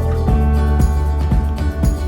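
Background music with a steady beat and jingling bell-like percussion.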